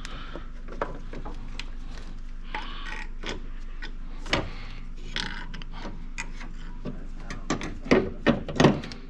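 Metal clicks, scrapes and knocks of a car engine mount being slid back into its place in the engine bay, with three heavier knocks near the end.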